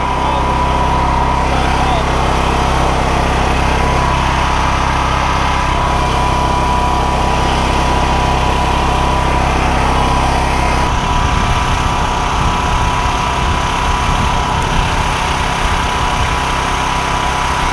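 A small engine runs steadily with a constant high hum. About eleven seconds in, the smooth low drone gives way to an uneven low rumble.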